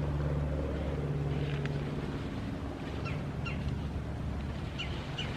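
Steady low mechanical hum, like a running motor or engine, with a few brief high chirps over it.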